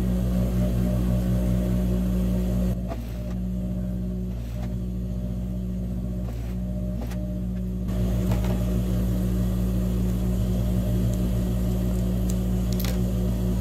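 Industrial straight-stitch sewing machine running as denim waistband is fed under the needle, a steady motor hum that drops quieter for a few seconds in the middle. Near the end come a few sharp snips of scissors cutting the thread.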